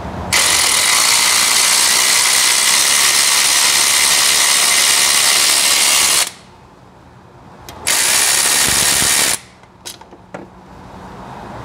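Cordless electric ratchet running with an extension and a 10 mm deep socket, backing out a thermostat housing bolt. It runs in two bursts: a long one of about six seconds, then a shorter one of about a second and a half. A few light clicks come near the end.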